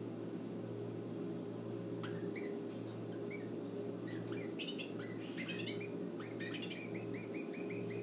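Canary chicks in the nest cheeping: short, thin, high chirps, sparse at first and crowding together after about four seconds, ending in a quick even run of chirps. A steady low hum runs underneath.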